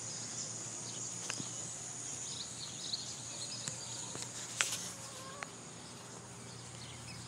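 Steady high-pitched chorus of insects, with a few faint knocks and clicks of handling as the camera is carried.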